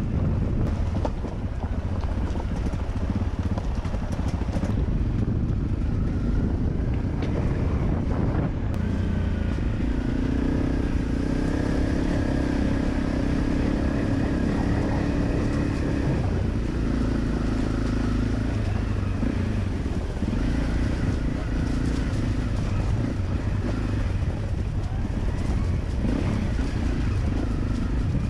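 Single-cylinder trail motorcycle engine running while the bike is ridden over a rough dirt and stone track, its note rising and holding steady for a few seconds at a time in the middle and easing off again, with wind on the microphone and frequent knocks from the bike over the uneven ground.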